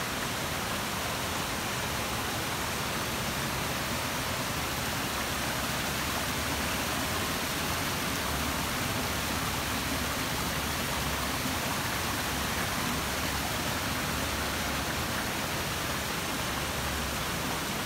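Waterfall pouring down a rock wall into a pool: a steady, even rush of falling and splashing water.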